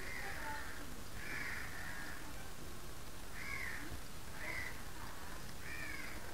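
A bird calling over and over in the background, short calls about once a second, over a steady faint hiss.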